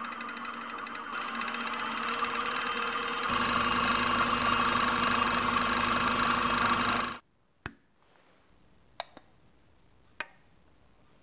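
Wood lathe running steadily with a motor hum while it winds sewing thread onto a turned spool; it gets louder about three seconds in and stops abruptly about seven seconds in. Then three light clicks of the turned wooden box parts being handled.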